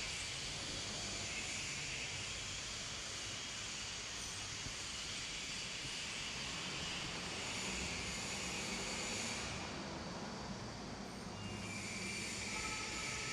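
Steady background noise, a low hum under an even hiss, with no distinct events.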